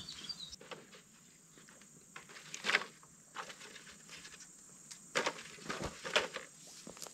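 Irregular footsteps in rubber boots on dry soil, with light knocks of long bamboo poles being carried; the loudest knock comes about two and a half seconds in and a few more cluster near the end.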